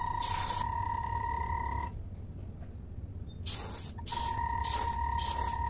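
Airbrush spraying a thin clear coat of Lycal resin in short hissing bursts, with a steady high whistle while the air flows and a low steady hum underneath. The spraying stops for about two seconds in the middle, then starts again.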